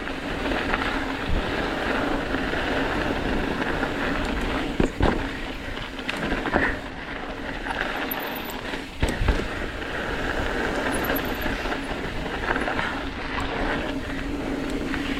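Mountain bike riding downhill on a dirt trail: steady rushing tyre and wind noise with rattling, broken by a few sharp knocks about five and nine seconds in.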